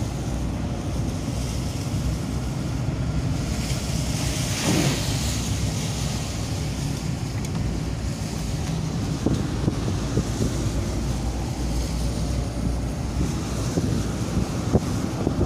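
A van driving on a wet mountain road, heard from inside the cabin: a steady engine and road rumble with wind noise on the microphone. A brief hissing swell comes about five seconds in.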